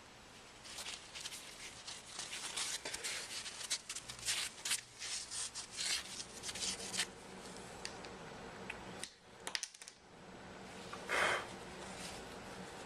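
Close-up handling noise as a replacement screen is pressed and worked onto a Galaxy S3 by hand: a run of short scratchy rubs and small clicks, then after a brief lull one louder rub near the end.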